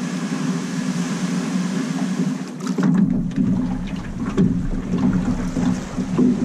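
Outboard motor on a small aluminium boat running steadily under a constant hiss. About three seconds in, a deeper rumble joins and the sound gets a little louder.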